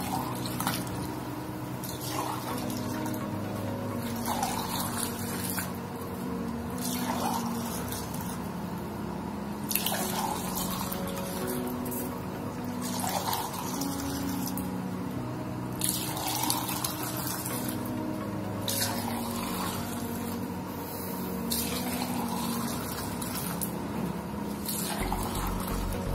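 Milky teh tarik with Milo being 'pulled': poured back and forth between two glasses from a height, the stream splashing into the glass with a fresh surge every two to three seconds as each pour begins.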